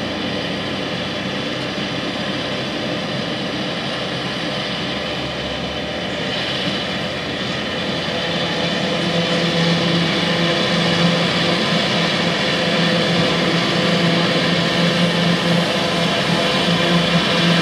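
John Deere tractor and a forage harvester running steadily while chopping corn, with the machine drone growing louder from about halfway through as they draw closer.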